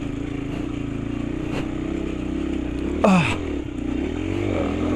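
Motorcycle engine running in low gear, climbing a rough, bumpy dirt road, with a brief loud sound falling in pitch about three seconds in.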